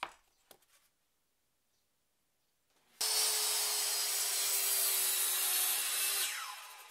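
A knock as the plywood saw guide is set down on the board, then a handheld circular saw starts suddenly about halfway through and runs steadily as it crosscuts an SPF board along the guide. Near the end the motor is released and the blade winds down with a falling whine.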